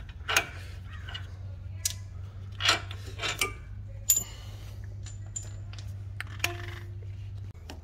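Scattered metallic clicks and clinks of wrenches and nuts at the front suspension strut bolts as the nuts are taken off, one clink near the end ringing briefly, over a steady low hum.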